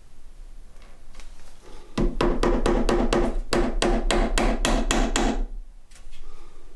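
A hammer tapping on wood in a quick, even run of about five strikes a second, each with a short ringing note. The run starts about two seconds in and stops about a second and a half before the end, with a few softer taps around it.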